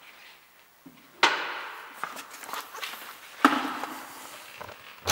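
Two sharp knocks of hard objects being handled, a little over two seconds apart, each followed by a short scraping rustle.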